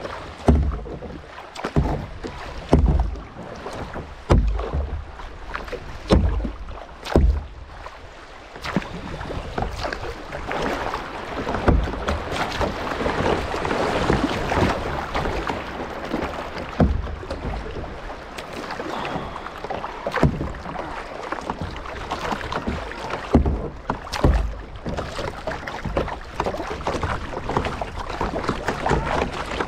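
Kayak on the move: irregular paddle strokes and knocks against the hull, then water rushing and splashing around the boat from about ten seconds in.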